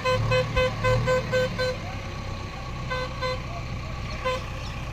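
Vehicle horn tooted in quick short beeps, about eight in the first two seconds, then two more around three seconds in and one near the end, over an engine running steadily.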